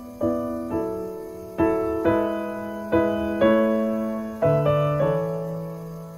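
Soft background piano music: a slow series of chords and notes, each struck and left to fade.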